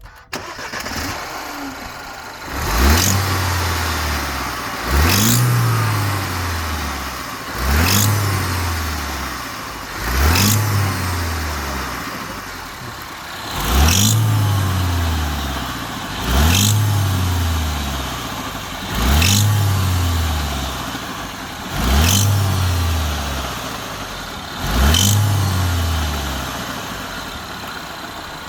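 BMW 116i F20's 1.6-litre turbocharged four-cylinder petrol engine running cold and blipped nine times, each rev rising quickly and falling back slowly, with a sharp high noise at the start of every rev. The owner takes the odd noise for the turbo on a cold engine, still undiagnosed.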